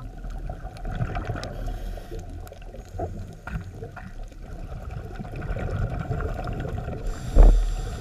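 Underwater ambience picked up by a camera on a reef dive: a steady low rumble of moving water with scattered sharp clicks, and a loud low thump near the end.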